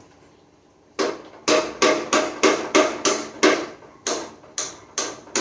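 Hand-held piezo gas lighter clicked over and over at a gas stove burner to light it: about a dozen sharp clicks, roughly three a second, starting about a second in.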